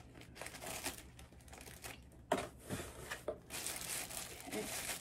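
Thin clear plastic bag crinkling and rustling as it is handled and pulled off a potted plant, with a couple of sharp crackles a little past the middle and denser rustling towards the end.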